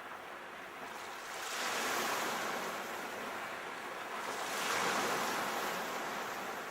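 Sea waves breaking and washing onto the shore, two surges about three seconds apart, with a little wind on the microphone.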